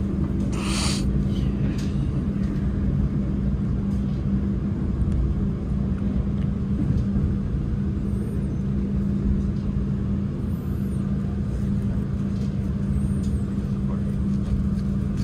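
Steady rumble of a moving passenger train heard from inside the carriage, with a constant low hum under it. A brief hiss about half a second to a second in.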